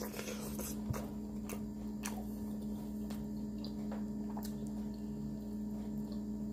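Faint wet mouth sounds of a person eating a sauce-covered seafood boil: scattered squishy chewing clicks and lip smacks. A steady low electrical hum runs underneath.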